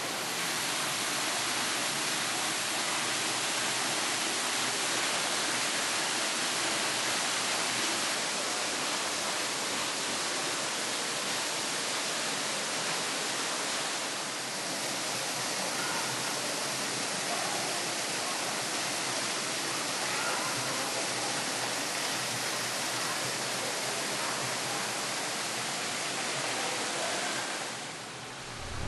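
Steady rush of running or falling water, an even hiss with most of its energy high up, dipping slightly about halfway through and fading near the end.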